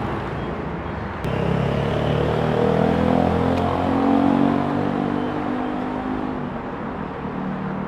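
A motor vehicle's engine passing on a nearby road, rising slightly in pitch as it accelerates, loudest about four seconds in and then fading away.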